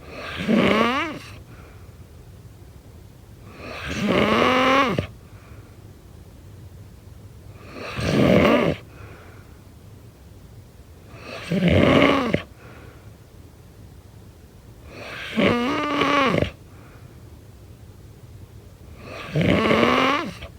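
A person snoring: six loud snores about four seconds apart, each lasting about a second, with a throaty pitch that slides as it goes.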